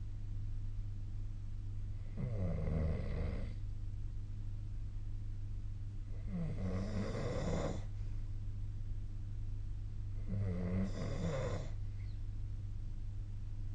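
A sleeping person snoring: three snores about four seconds apart, each lasting about a second and a half, with another starting at the very end.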